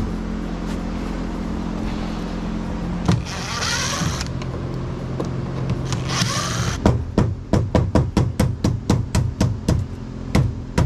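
Cordless drill whirring in two short bursts over a steady low hum, followed by a quick, even run of sharp ticks or knocks, about three or four a second.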